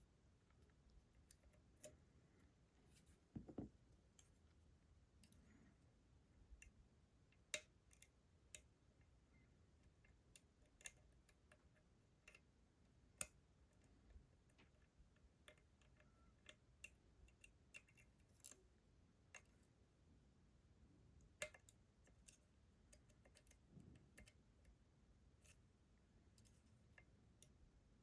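Faint, irregular small clicks and ticks of lock-picking tools, a slider fork and a short hook, working the sliders of an ASSA Desmo slider lock under tension, with a few sharper clicks standing out.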